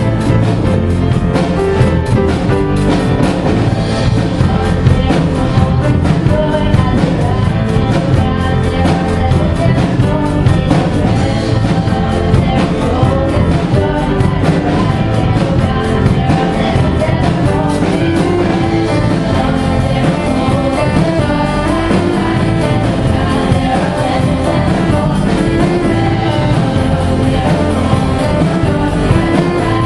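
Singers performing with instrumental backing, loud and continuous with a steady driving beat.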